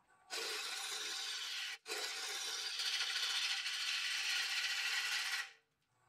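A bowl gouge rough-cutting a spinning walnut bowl blank on a lathe, giving a steady shearing hiss of wood being cut. The hiss breaks off for an instant about two seconds in and stops sharply about five and a half seconds in.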